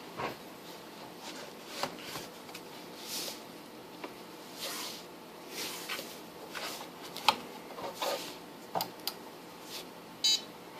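Cables and a bench power supply being handled and plugged in: scattered rustles and clicks, the sharpest about seven seconds in, then a short high electronic beep near the end.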